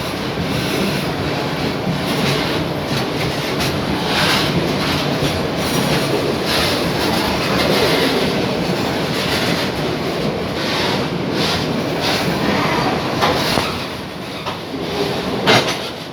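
Loaded freight train's wagons rolling past, a steady rumble of wheels on rail with sharp clacks and knocks every few seconds as the wheels cross rail joints.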